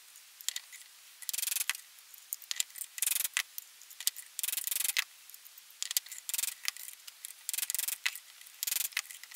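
Hammer tapping a steel chisel to drive a bearing out of a Polaris ATV rear axle carrier, metal on metal. The taps are light and irregular, mixed with short scrapes as the chisel shifts against the bearing's inner race.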